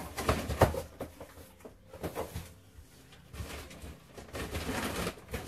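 Cardboard delivery boxes and food packaging being handled and searched through. A few sharp knocks come in the first second, then rustling and scraping through the second half.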